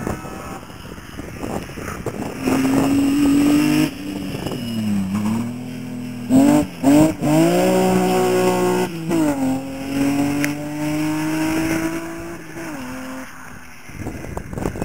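Rally car engine driven hard past the spectators. Its note climbs at high revs with several quick breaks at gear changes, dips and rises again, then drops away near the end.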